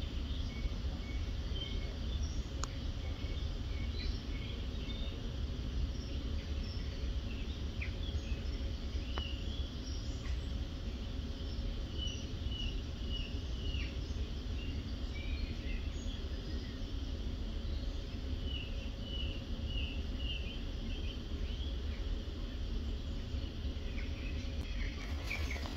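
Outdoor ambience of small birds chirping on and off, over a steady low rumble of background noise.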